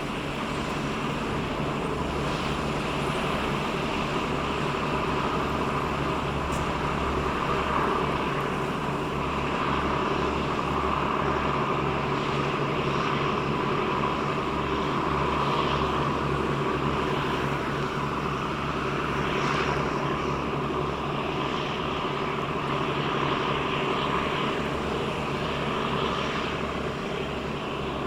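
Steady engine drone of the Japan Coast Guard survey vessel HS-27 Kurushima under way, with a low throb that comes and goes.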